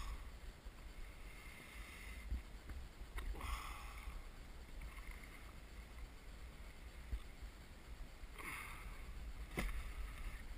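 Water lapping and splashing softly against a small inflatable boat, with wind rumbling on the microphone and a few light knocks.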